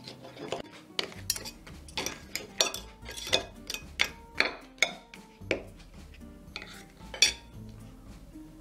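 Metal fork and knife clinking and scraping against a ceramic plate in an irregular run of sharp clinks, the loudest about seven seconds in. Background music plays underneath.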